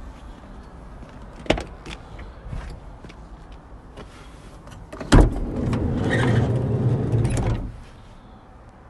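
A sharp click about a second and a half in. About five seconds in, the sliding side door of a VW Transporter T5 van unlatches with a loud clunk and rolls along its runners for about two and a half seconds, then stops.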